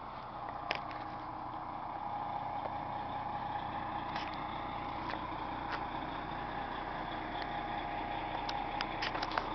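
MCI 102DL3 coach's diesel engine idling steadily, with a few faint clicks over the top.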